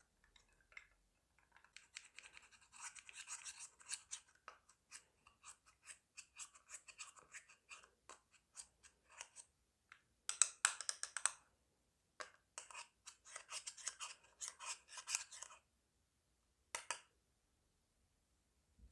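Slime being kneaded and squished by hand: runs of quick sticky pops and crackles, with short pauses between them.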